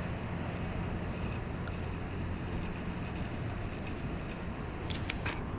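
Steady low rumble and hiss, with a faint low hum running under it and a few sharp clicks about five seconds in.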